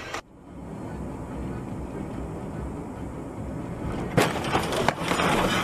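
Low rumble of a vehicle on the road, then about four seconds in a sudden loud impact followed by a quick run of sharp cracks and breaking sounds: a vehicle crash.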